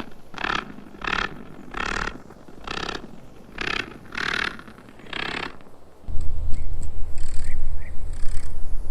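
Spider stridulation: a series of about seven short, raspy hissing rasps, roughly two-thirds of a second apart. About six seconds in, a louder low rumble takes over.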